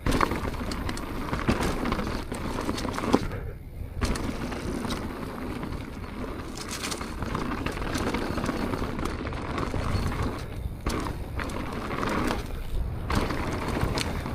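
Propain Tyee mountain bike riding down a dirt trail: a steady rush of tyres and air with scattered clicks and knocks from the bike, easing off briefly a few times.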